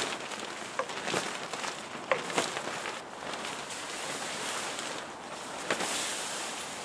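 A rain-wet nylon tent rain fly rustling and crinkling as it is pulled off the tent, with several sharp crackles of the fabric.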